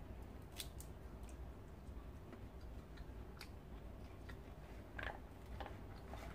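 Faint scattered clicks and crackles of a plastic mesh net bag and boiled peanuts in their shells being handled with the fingers, a slightly louder crackle about five seconds in.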